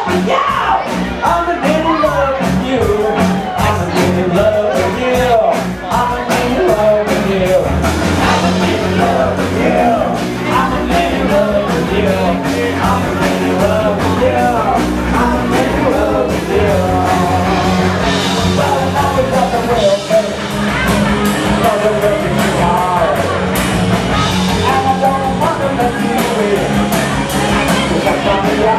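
Loud live cello rock: a bowed electric cello, bass guitar and drums playing together, with sung and shouted vocals over the top.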